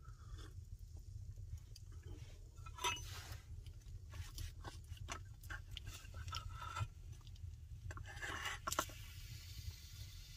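Kitchen scissors cutting through a crisp, stone-baked flatbread pizza: crunchy snips and scattered clicks, with louder bursts about three seconds in and again near the end, over a steady low rumble.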